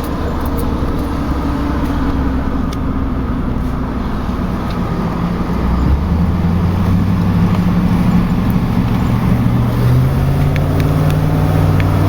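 Pickup truck driving while towing a loaded equipment trailer: the engine runs under road noise, and from about halfway through its pitch climbs as the truck picks up speed.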